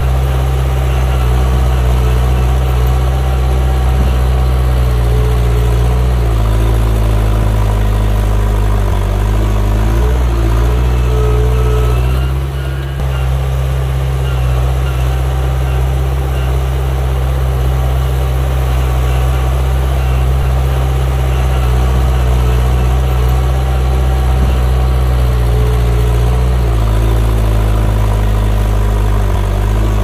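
Diesel engine of a Komatsu mini bulldozer running steadily as it works. Its note shifts up and down several times, with a brief dip in loudness midway.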